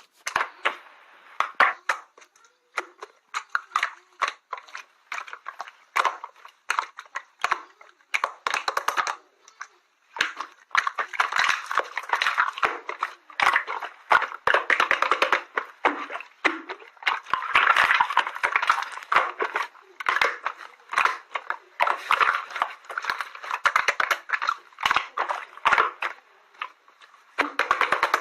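Slime being squeezed and poked by hand, making dense crackling clicks and pops in clusters with short pauses between them.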